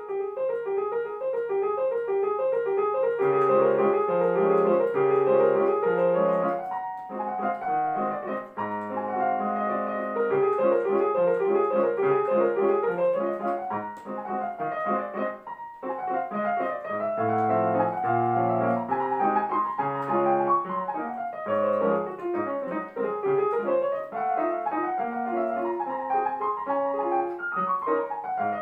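Digital piano played solo: a fast classical piece with quick running notes in the right hand over lower bass notes in the left.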